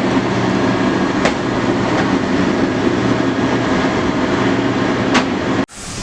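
Steady rumble of a fire ladder truck's engine running, with a couple of short clicks; it cuts off abruptly near the end.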